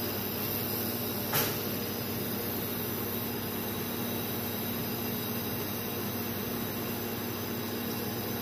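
Steady machine hum and hiss of a robot-arm laser welding station, with one short click about a second and a half in.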